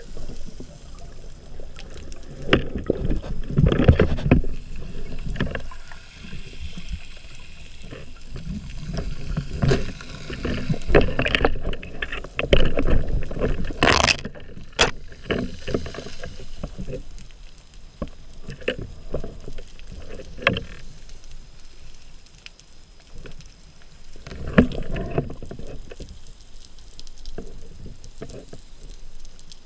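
Muffled underwater water-movement noise around a camera housing as a free diver swims up: irregular rushing, swishing surges, with a couple of sharp clicks about halfway through, growing quieter toward the end.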